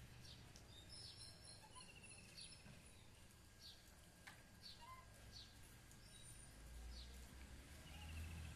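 Faint birds chirping: short, high chirps about every second, with a short rapid trill twice, over a quiet background. A low rumble rises near the end.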